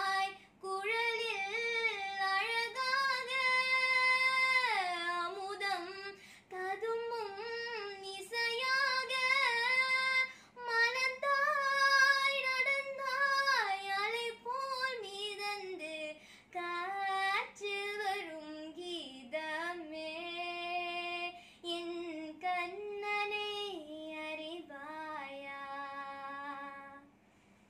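A girl singing a Tamil song solo and unaccompanied, in long phrases with sustained held notes and quick ornamental turns in pitch.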